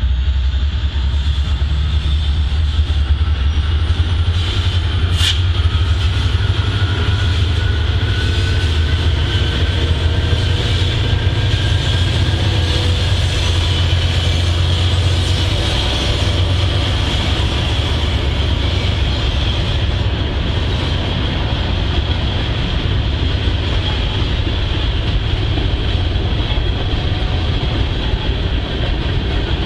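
Freight train rolling past: the diesel locomotives' deep rumble is strongest for the first half and eases off as a long string of hopper and tank cars follows with steady wheel-on-rail noise. A brief sharp high ping about five seconds in.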